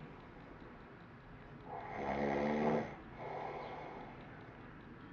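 A man snoring in his sleep: near the start it is fairly quiet, then about two seconds in comes one loud, low, buzzing snore, followed by a softer breath.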